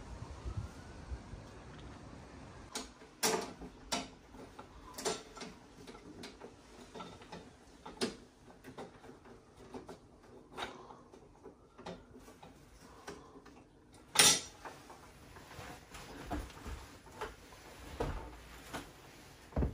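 Irregular sharp metallic clicks and knocks of tools and parts being handled inside an open boiler, with one loud knock about two-thirds of the way through.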